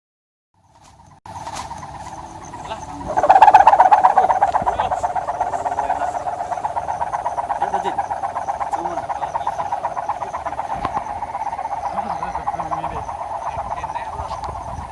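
Sendaren kite hummer, a ribbon stretched across a bamboo bow, buzzing in the wind with a steady pulsing drone. It comes in about a second in and swells louder a few seconds later.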